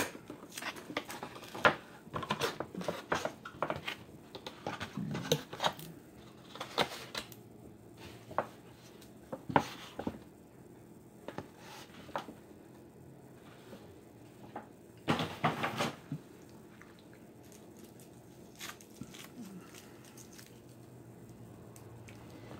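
Scattered clicks, taps and rustles of something being handled, busiest in the first seven seconds and again in a short cluster about fifteen seconds in, then faint room tone.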